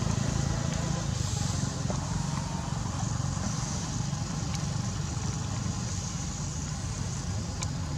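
Steady low rumble of a motor vehicle running nearby, slowly fading.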